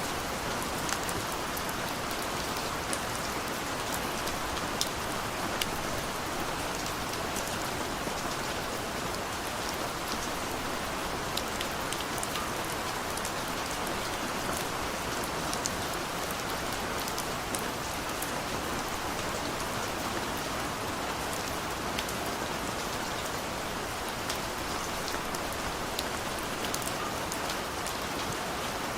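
Heavy rain falling steadily, with many sharp individual drop ticks on a surface.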